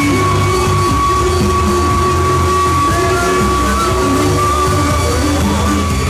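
Loud electronic music played through a paredão car sound system, with heavy bass and a long held high note.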